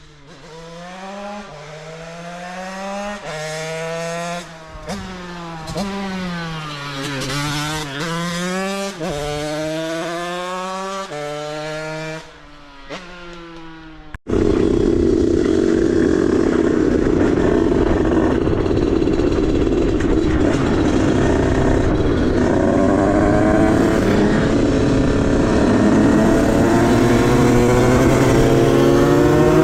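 Beta RR50 moped's two-stroke engine with a 77 cc Stage 6 big-bore kit and KTM SX85 exhaust, revved up and down again and again. About 14 seconds in the sound jumps abruptly to a louder, harsher steady run at high revs, with a lot of noise over the engine note.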